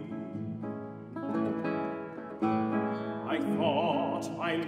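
Classical guitar playing a solo passage of plucked notes and chords between sung lines. A tenor voice comes back in with a wide vibrato about three seconds in.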